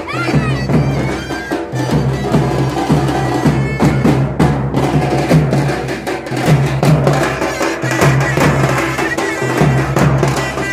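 Traditional Indian street band: a reedy woodwind plays a wavering, sliding melody over drums beaten with sticks in a steady, driving rhythm.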